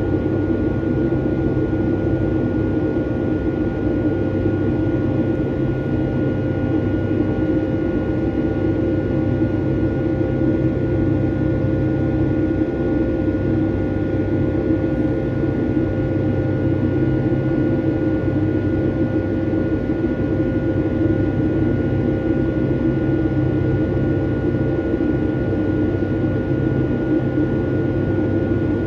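Steady engine and airflow noise inside the cabin of a Boeing 757-200 with Rolls-Royce RB211 engines in flight: a constant deep rush with a steady high whine running through it.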